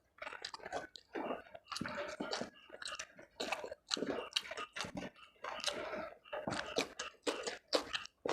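A person chewing food with the mouth close to the microphone: quick runs of sharp, wet mouth clicks in groups, broken by brief pauses.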